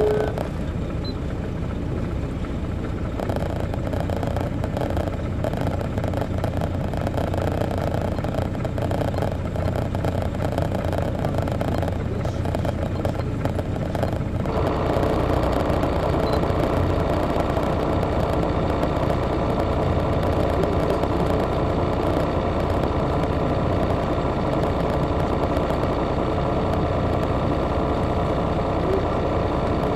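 Detroit Diesel Series 60 diesel engine of a 2002 MCI D4000 coach bus, heard from the rear of the passenger cabin, running steadily. About halfway through, the engine sound abruptly becomes fuller and slightly louder.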